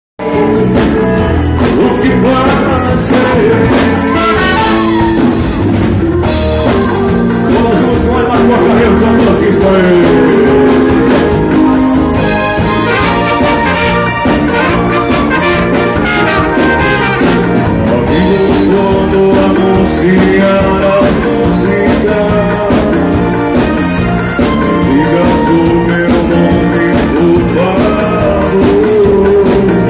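Live band playing bailão dance music: a male voice singing into a microphone over drums and electric guitar, loud and continuous.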